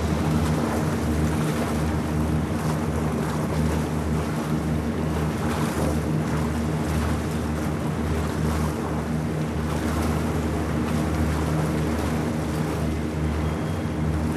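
A ferry's engine running with a steady low drone, over the rush of water and wind.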